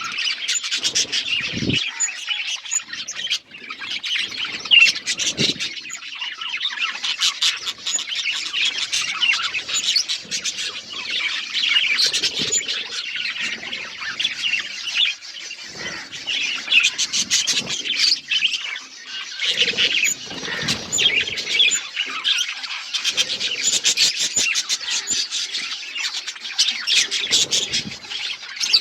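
Several budgerigars chirping and chattering to each other in a dense, continuous stream of rapid, high, short calls.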